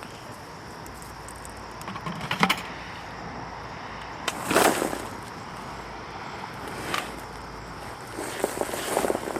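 A 5-gallon bucket of potting soil being handled and dumped out: scattered rustles and scrapes of loose soil, with a louder rush about halfway through.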